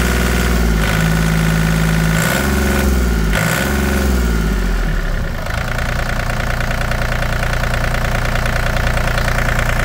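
Komatsu PC20-7 mini excavator's diesel engine running, heard up close at the open engine bay. Its pitch rises and falls a few times in the first half, then it settles to a steady idle about halfway through.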